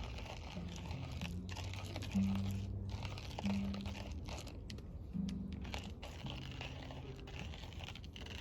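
Wood fire crackling and popping, with a guitar playing slow, sparse low notes, about one a second, each held briefly.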